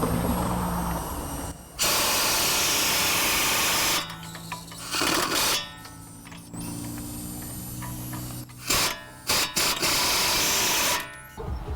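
Several bursts of pressurised hissing, the first lasting about two seconds, then a short one, then a run of shorter and longer bursts near the end, with a low hum in between.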